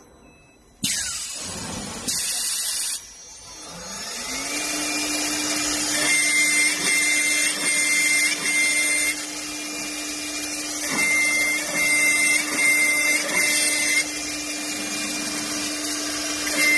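Spindle of a 4-axis CNC woodworking machine running: after some abrupt changes early on, its whine rises about four seconds in and holds steady, with a repeating higher cutting noise over it as the machine works a wooden leg.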